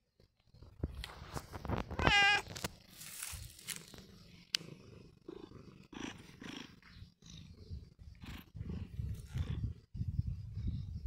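A domestic cat meows once, briefly, about two seconds in. Around the meow are a low purring rumble and rustling of fur brushing close against the microphone as the cat rubs against the hand and phone.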